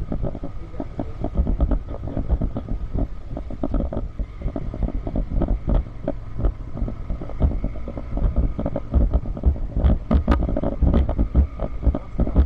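Motorbike riding over a rough, broken road: the engine runs under an uneven low rumble, with a faint steady whine and frequent knocks and rattles from the bumps.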